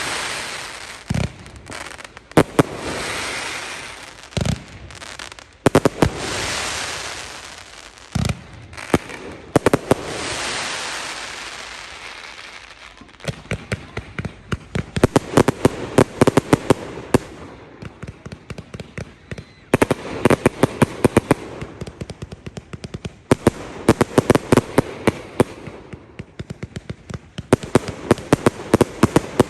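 Fireworks display: loud shell bursts a few seconds apart, each followed by a long hissing crackle. From about halfway on come waves of dense, rapid crackling pops.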